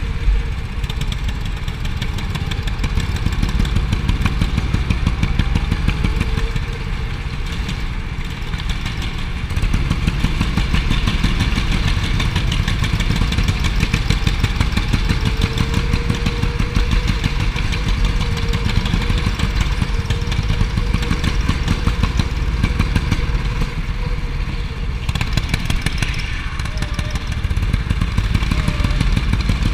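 Indoor rental go-kart engine running hard under throttle, heard close up from the kart itself. The note dips briefly a few times, as when lifting off for corners.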